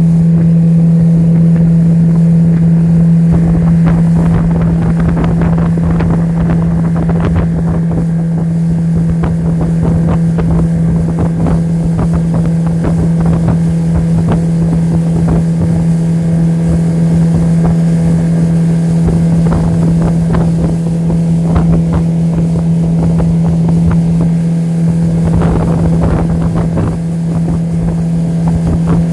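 Motor of a small aluminium fishing boat running under way with a steady hum at one unchanging pitch. Irregular water splashing and wind buffeting the microphone sound over it.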